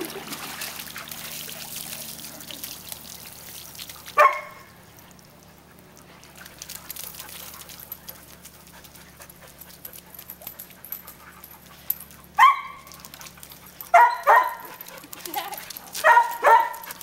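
Husky barking in short, pitched barks: one about four seconds in, another about twelve seconds in, then a quick series of several near the end.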